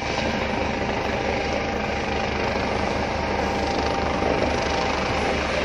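Search-and-rescue helicopter flying overhead on its approach to land, its rotor beating in an even, steady rhythm under a continuous engine and blade noise.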